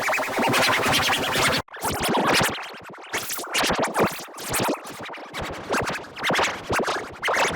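Electronically distorted, chopped-up audio effects with a stuttering, scratch-like sound. It cuts out abruptly under two seconds in, then comes back as irregular choppy bursts.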